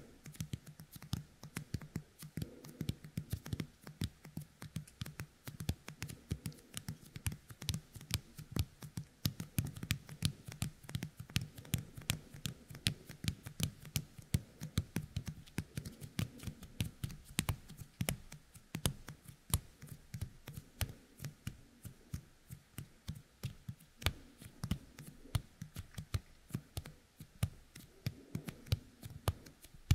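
Youkai kemuri toy: fingertips coated with its sticky resin are pressed together and pulled apart again and again right at a binaural dummy head's ear. Each parting makes a small sticky click, several a second, in a continuous run.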